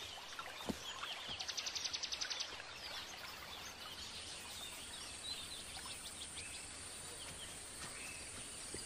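Faint forest ambience with scattered bird chirps and calls. A rapid ticking trill comes about a second and a half in, and a steady high buzz sets in about halfway through.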